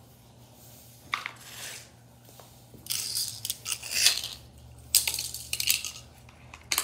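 Plastic Hot Wheels track pieces being handled and shifted, clattering and clicking in several short bursts.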